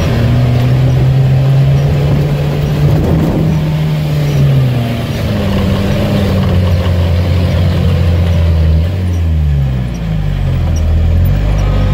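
Off-road UAZ truck's engine pulling through a swamp in low-range second gear, heard from inside the cab; the revs hold steady, dip, climb again and drop off near the end.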